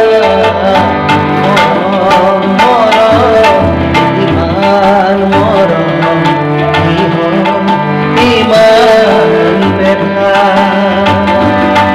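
A man singing a melodic song, accompanied by sustained harmonium notes and a steady tabla rhythm.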